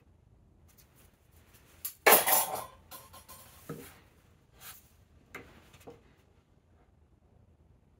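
Metal hand tools clinking and clattering on a workbench as tools are swapped, a steel rule for a wheel marking gauge: one loud clatter about two seconds in, then a few light clicks and taps.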